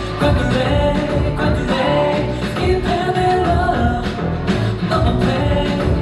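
Live pop-rock music over a concert sound system, with a steady beat and singing.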